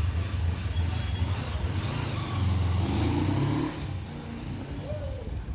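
Motorcycle engine running on a test ride after repairs to an engine that had taken in water and sand. The steady low engine note drops off and grows quieter about four seconds in.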